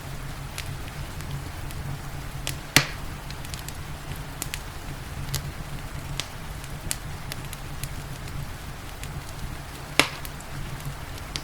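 Wood fire crackling with scattered small clicks and two loud pops, about three seconds in and near the end, over a steady low rumble and rain hiss.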